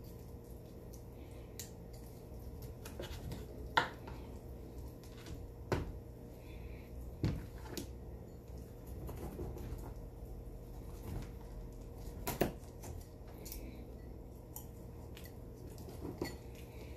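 Kitchen knife working on a plastic cutting board while meat is cut from a whole squirrel carcass: scattered light clicks and taps of the blade, with four louder knocks, over a steady low hum.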